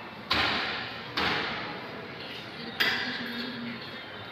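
Three air gun shots from competitors on a match range, each a sharp crack that trails off in the room's echo; the first two come under a second apart, the third about a second and a half later.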